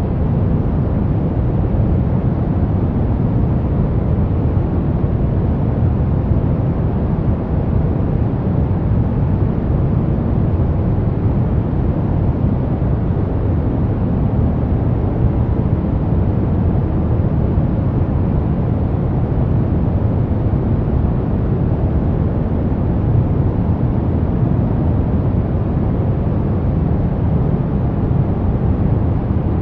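Steady brown noise: an even, deep rushing hiss with its weight in the low end and no changes.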